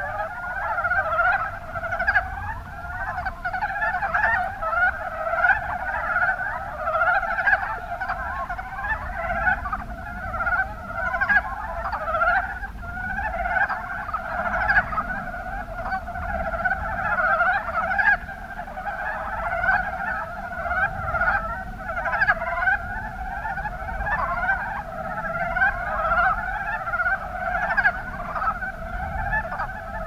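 Breeding chorus of mountain brown frogs (Rana ornativentris): many short, rapid calls overlapping without pause.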